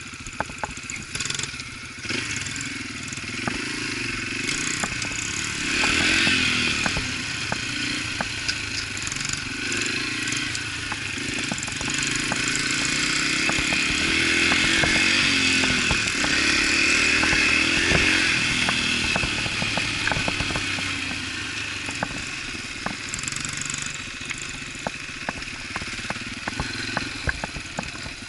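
Small four-stroke single-cylinder dirt bike engine running under way, its pitch rising and falling with the throttle, with frequent clicks and rattles. It grows louder about six seconds in and again through the middle.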